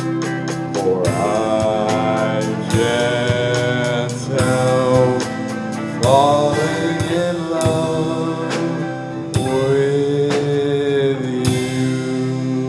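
Live rock band playing a song, with a man singing lead into a microphone over a drum kit, guitars and keyboard. Drum hits mark a steady beat under the vocal line.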